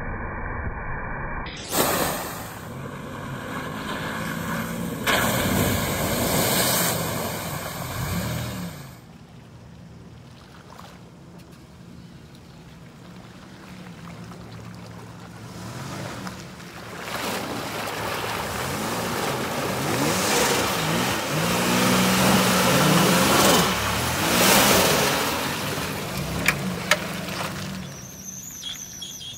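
Turbocharged Toyota 4Runner's 5VZ-FE V6 revving up and down as the truck drives through deep mud and water holes, with mud and water splashing. It comes as several short clips with abrupt cuts, quieter for a few seconds in the middle.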